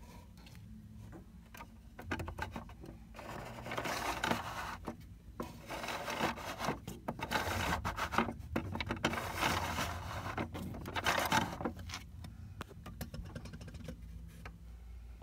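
Hard plastic scraping and rubbing in uneven bursts, with small clicks, as the toy Water Mill Bakery's mill mechanism is turned by hand.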